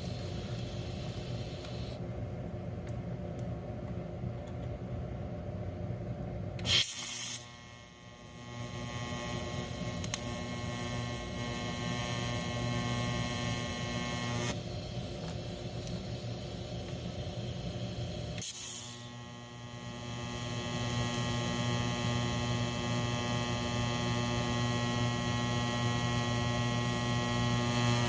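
Miller TIG welder arc buzzing steadily over a low hum as weld is built up on a broken bolt. The arc is struck with a short loud burst about seven seconds in, stops about fourteen seconds in, and is struck again with another burst after about eighteen seconds, buzzing on from there.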